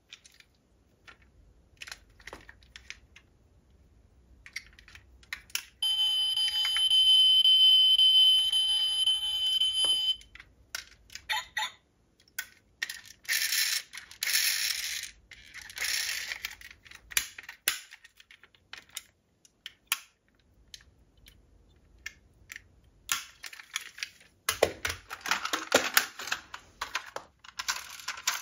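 Small clicks, taps and rattles of diecast metal model cars being handled, with doors opened and closed. About six seconds in, a steady electronic tone with several fixed pitches sounds for about four seconds and cuts off suddenly. Later come bursts of scraping and rattling.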